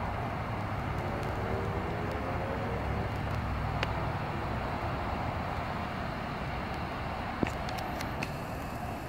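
Steady outdoor background noise with a low rumble. A sharp click comes about three-quarters of the way through, followed by a few lighter ones.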